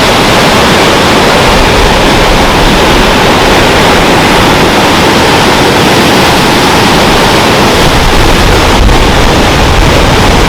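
Loud, steady rush of a waterfall heard up close.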